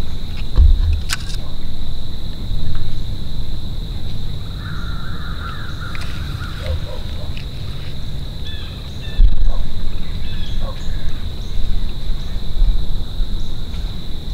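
Outdoor morning ambience: a low rumble on the microphone that swells about nine seconds in, a steady high-pitched whine, and a few bird calls near the middle.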